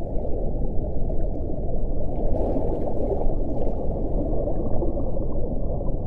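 Underwater ambient soundscape: a dense, steady low rush of water noise with no clear whale call standing out.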